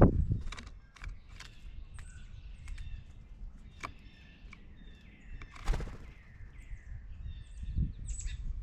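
Small songbirds chirping and calling, with many sharp ticks and taps, and a low thump at the start and another about six seconds in.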